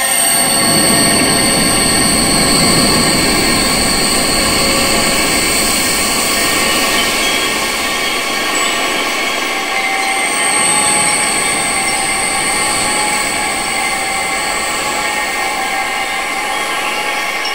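Wind sound: a steady noise with several sustained high-pitched tones ringing over it, swelling in the low range for the first few seconds and then easing.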